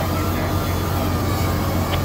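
Steady low drone of running ship's machinery, an even hum with no change in level.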